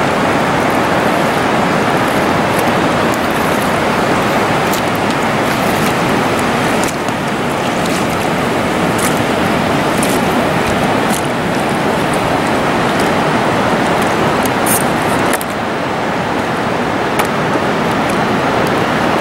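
Steady rush of a glacial meltwater cascade pouring down the rocks beside a tidewater glacier, with a few faint light ticks over it.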